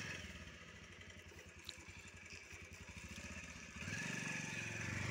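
Motorcycle engine running at a low idle, a steady low pulsing that gets louder about four seconds in.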